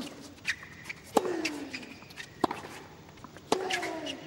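Tennis rally: rackets strike the ball four times, about every second and a quarter, as the players trade groundstrokes. A drawn-out falling tone follows two of the hits.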